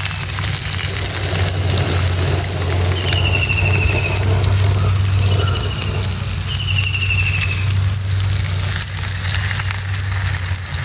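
King fish slices sizzling steadily as they fry in oil, over a steady low hum. A short, high, falling whistle sounds three times.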